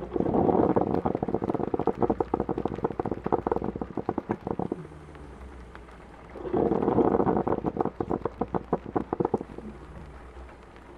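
Coffee pot gurgling and sputtering as it brews, in two bursts of a few seconds each with a short lull between, over a soft steady rain hiss.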